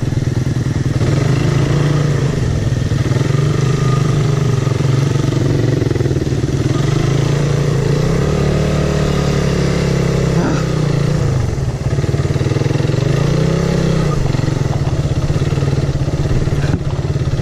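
Suzuki Raider 150's carburetted single-cylinder engine running close up, its pitch rising and falling again and again as the throttle is worked. The bike is fighting for grip on a slippery dirt track.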